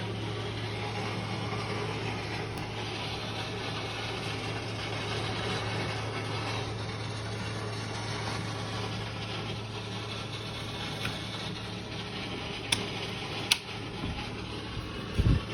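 Steady low mechanical drone with a constant low hum under a wide rushing noise, of unknown origin. Two sharp clicks come near the end, then a short low thump.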